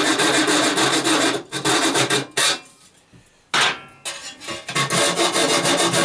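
Hacksaw cutting through a thin metal dome in quick, even strokes. The sawing stops about two and a half seconds in; a second later comes a single knock with a brief metallic ring, and the sawing then resumes.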